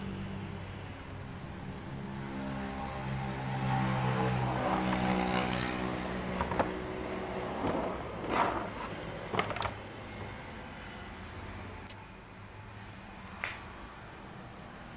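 A motor vehicle engine running steadily, growing louder a few seconds in and then fading away. Several sharp clicks and knocks follow in the second half.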